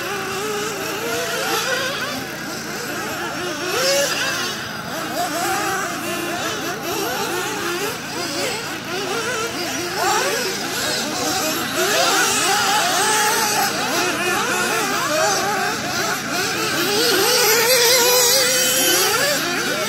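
Several radio-controlled off-road cars racing, their motors whining up and down in pitch as they accelerate and brake, many overlapping at once.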